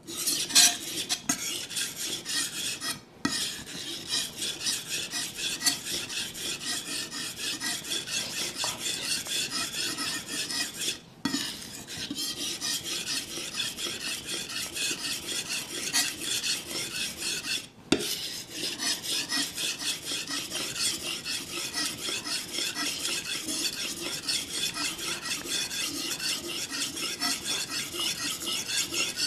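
Kitchen knife being sharpened on a water-soaked whetstone: the blade scrapes back and forth across the wet stone in a steady rhythm of about two strokes a second, broken by three short pauses.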